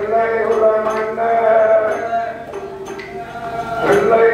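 A man chanting a sung narrative over steady sustained accompanying tones, with regular percussion strokes about twice a second. The music eases off a little past the middle and swells back near the end.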